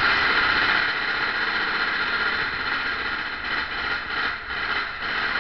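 Mine-train roller coaster running through a dark tunnel, its wheels on the track making a steady noise.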